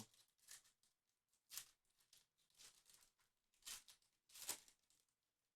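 Near silence with about five faint, brief rustles and scrapes of trading cards being handled and set in place.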